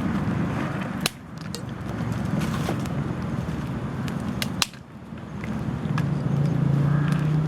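A few sharp clicks and knocks over a steady low engine hum that grows louder near the end.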